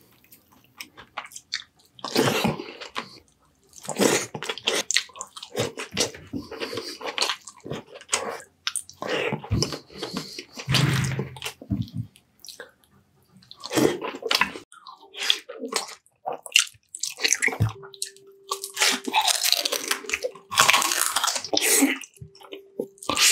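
A person eating close to the microphone, mukbang-style: chewing and biting noises in irregular bursts with short gaps between them.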